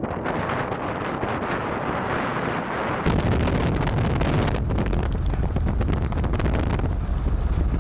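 Wind buffeting the microphone with a steady rush, which becomes abruptly heavier and deeper, with crackling gusts, about three seconds in.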